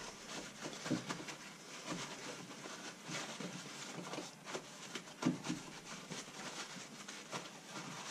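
Paper towels rustling and crinkling as a rinsed raw chicken is patted dry in a plastic tray, with soft, irregular pats and taps.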